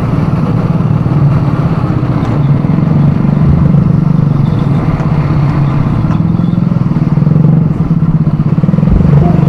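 ATV engine running steadily under way.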